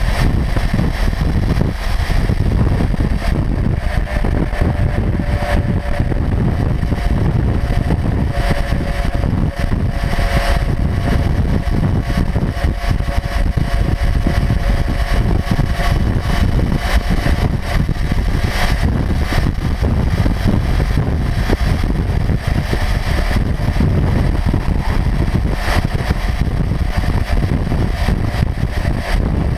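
Kawasaki Ninja 400 motorcycle cruising at expressway speed, heard from low at the rear beside the tyre: loud, steady wind buffeting on the microphone over road and tyre rumble. A faint steady tone, likely the engine, comes through in the middle part.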